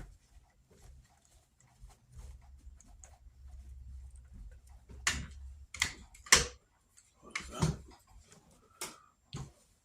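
Several sharp knocks and clicks, about six in the second half, from vacuum parts and tools being handled and set down during reassembly. A faint low hum sits under the first half.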